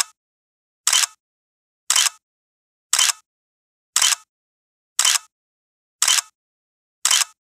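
Camera shutter sound repeating about once a second, each a quick double click, with dead silence between: a shutter effect marking each photo as it comes up in a slideshow.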